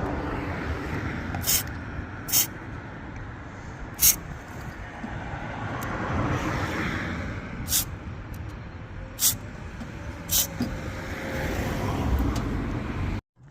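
Six short hissing bursts from an aerosol can of white lithium grease, sprayed onto a creaking suspension top mount, over steady road traffic noise.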